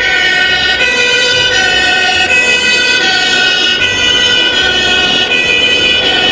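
Fire-engine siren, loud and electronic, switching back and forth between a high and a low tone about every three-quarters of a second.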